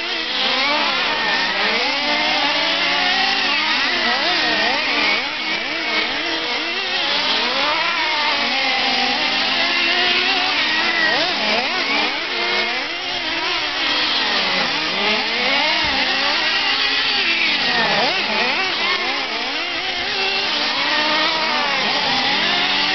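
Several radio-controlled nitro trucks racing, their small two-stroke glow-fuel engines revving up and down at high pitch as they accelerate and back off around the oval, the engine notes overlapping.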